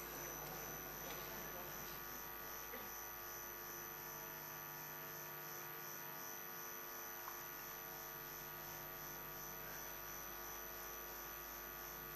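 Low steady electrical mains hum and hiss, with a faint high whine pulsing about twice a second.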